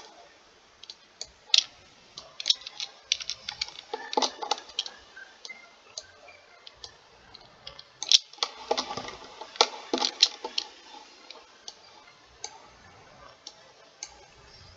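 Computer mouse and keyboard clicking: scattered single clicks, with quicker runs of clicks about four seconds in and again around eight to ten seconds in.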